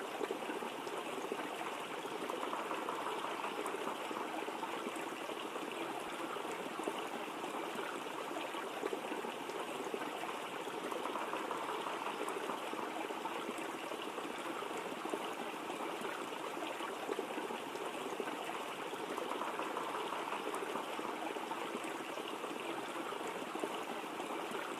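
Steady rushing of a waterfall, an even wash of falling water that does not change.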